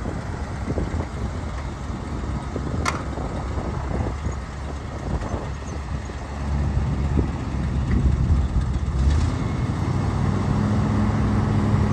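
1979 Ford F600 truck engine running, with a low rumble that grows stronger and louder from about six seconds in. A single sharp click comes about three seconds in.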